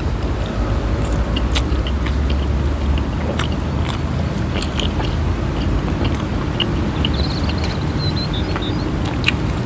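Close-miked chewing and mouth sounds of people eating grilled chicken by hand, with many small wet clicks and crunches scattered through, over a steady low rumble.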